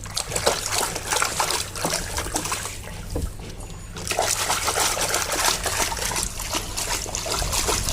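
Water trickling and splashing as a muddy plastic toy is washed by hand in a tub, with a quieter lull about three seconds in before the splashing picks up again.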